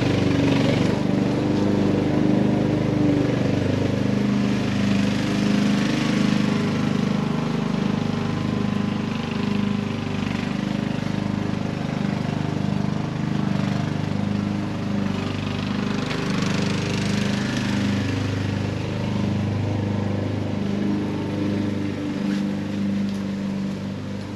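A small engine running steadily throughout, with rustling and swishing of tent fabric as it is rolled up and pressed down.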